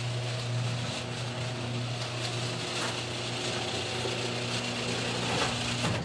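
LiftMaster garage door opener running: a steady motor hum with a rattling mechanical noise as it drives the door.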